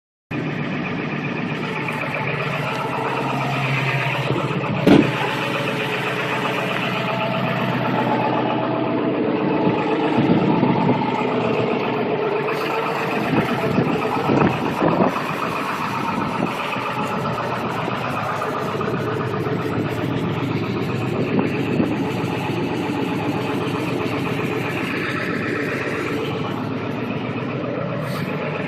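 Ford 7.3 Powerstroke V8 diesel engine sounding steadily during a cold-weather hard-start session, a truck that still won't start easily despite new glow plugs, glow plug relay and batteries. A sharp click comes about five seconds in.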